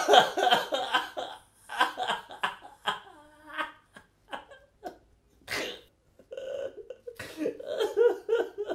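A man blubbering: loud, ragged sobs and gasps in bursts, turning into longer wavering wails in the last few seconds.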